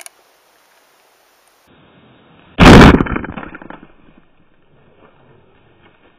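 A single gunshot at a bull elk, about two and a half seconds in: sudden and very loud, echoing away over about a second.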